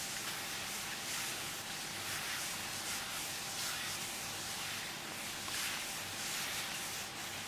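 Paper towel pressed under a gloved hand and rubbed back and forth across a smooth floor, a steady scrubbing hiss that swells with each stroke, as the remains of a spill are wiped up after spraying with ethanol.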